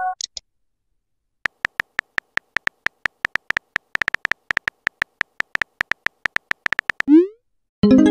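Rapid keyboard tap clicks of a texting-story app as a message is typed, for about five seconds. Near the end a short rising swoosh and a chime sound as the message is sent.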